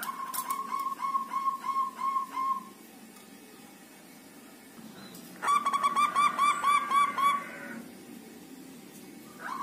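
Zebra doves (perkutut) cooing: a quick run of about ten evenly spaced coos in the first few seconds, then after a pause a second, louder run of coos a little past halfway.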